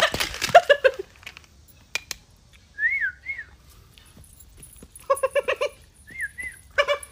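A man whistles two short notes that each rise and fall, first about three seconds in and again near the end. Between them comes a brief run of quick pulsing vocal sounds.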